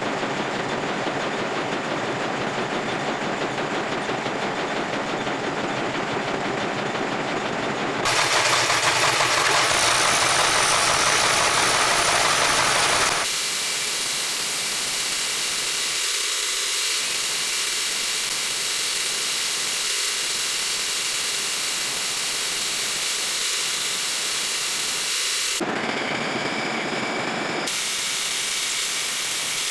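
Metal lathe running and cutting steel, a steady hiss of machining noise. It changes abruptly several times and is loudest for about five seconds starting about eight seconds in.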